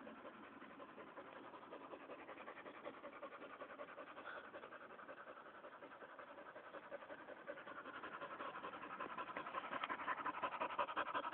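Dog panting rapidly, about four breaths a second, close to the microphone; it grows louder over the last few seconds as the dog's nose comes right up to it.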